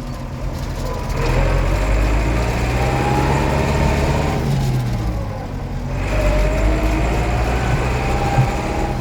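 Case 885XL tractor's diesel engine running under load as the tractor drives along in a high gear, with a faint rising whine. The engine note drops briefly about halfway through, then picks up again.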